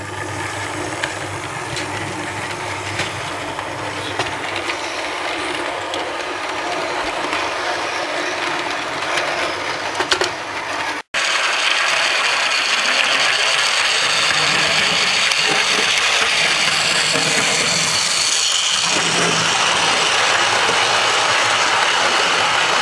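OO gauge model steam locomotives and coaches running on the track: the steady whir of the electric motor and gears with wheel noise from the rails. After a cut about 11 seconds in, it is louder as a locomotive and coaches pass close by.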